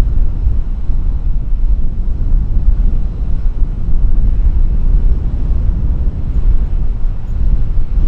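Low, steady rumble of a Boeing 737's twin jet engines at low thrust as the airliner turns on the runway, with wind buffeting the microphone in gusts.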